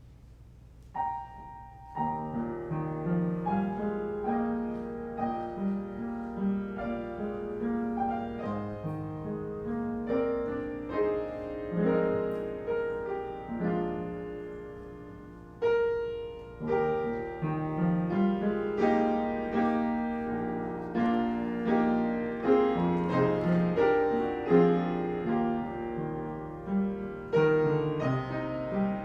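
Piano playing: a single note about a second in, then a steady run of chords and melody notes, each fading after it is struck, with a brief softening before it swells again past the middle.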